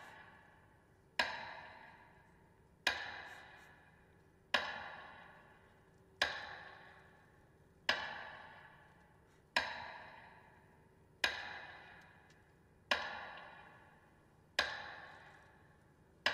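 Amplified metronome beating to mark a minute of silence: one sharp stroke about every 1.7 seconds, each ringing away before the next.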